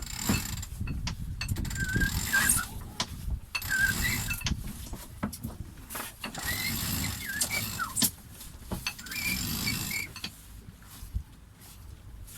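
Wind gusting against the microphone aboard a sailboat, with short squeaks and scattered knocks from the rigging as the sails are worked. The gusts ease near the end.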